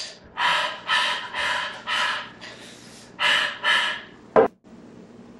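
A man's voice making a run of short, breathy, exaggerated gasps: six in quick succession, then two more after a pause. A single sharp knock comes near the end, followed by faint steady room hum.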